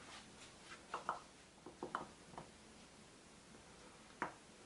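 Faint, scattered light clicks and taps of kitchen items being handled on a countertop: a small cluster in the first half and one sharper tap near the end.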